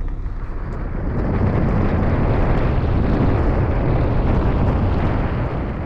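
Wind buffeting the microphone: a loud, low rumbling rush that builds about a second in and eases near the end.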